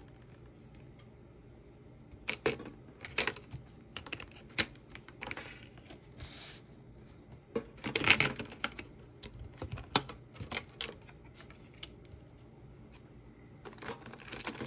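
Pokémon trading cards being taken out of their packaging and set down on a wooden table: scattered light taps, clicks and short rustles of card stock, with the busiest handling about eight seconds in.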